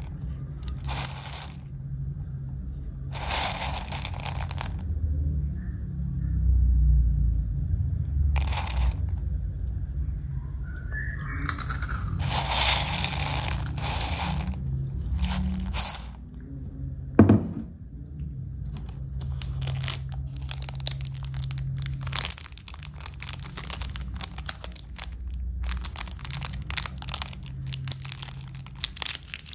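Hands stirring a ceramic bowl of Milo chocolate cereal balls, in separate rattling, rustling bursts. A single sharp knock comes a little past halfway. After that, a plastic candy wrapper crinkles and tears as it is opened.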